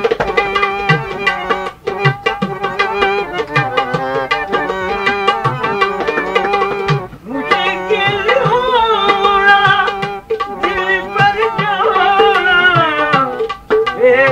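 Punjabi ghazal-style music: tabla strokes keep a steady rhythm under a sustained melodic line and a man's singing voice, with brief breaks between phrases.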